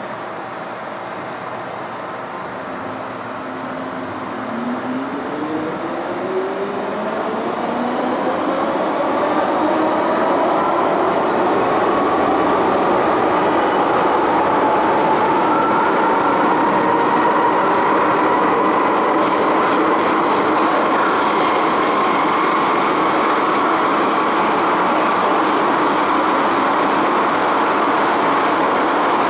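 MTR M-Train (Tsuen Wan line stock) pulling out of a station and accelerating hard into a tunnel, heard from inside the car. About four seconds in, the traction motors' whine starts and climbs steadily in pitch for about ten seconds, then holds steady at speed over the rumble of wheels on rail, the whole sound growing louder as the train gathers speed.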